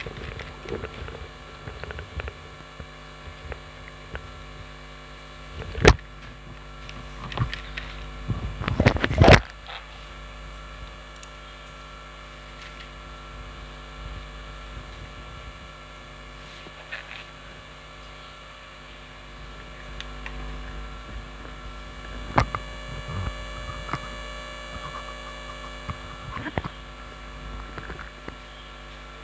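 Steady electrical hum under room tone, broken by a few sharp knocks and clatters. There is one knock about six seconds in, a louder cluster around nine seconds, and fainter knocks later.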